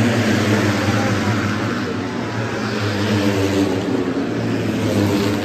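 A steady engine-like drone over the broad murmur of a large crowd.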